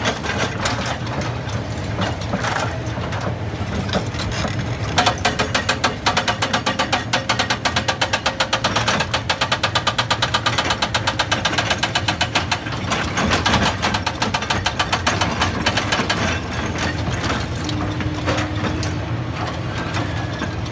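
An excavator's hydraulic breaker hammering rock and a rotary drum cutter grinding rock at the same time, over the steady hum of the excavators' diesel engines. The impacts and clicks come fast and even, and are most regular and strongest from about five to twelve seconds in.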